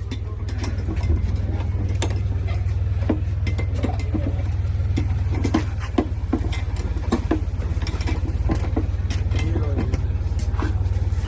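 An engine idling steadily in a low, even rumble, with repeated sharp metallic clinks and knocks of hand tools on bolts as a part is loosened on a tractor.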